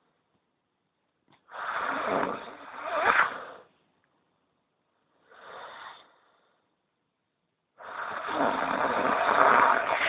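Snoring: three noisy breaths a few seconds apart, the last the longest and loudest.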